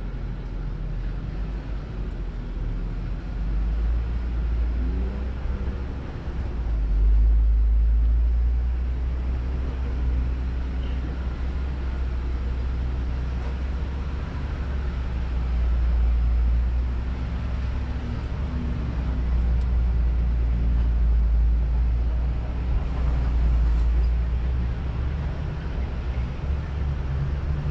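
Jeep Wrangler JL Rubicon running on the trail, a steady low rumble that swells in loudness a few times as the throttle comes on and off.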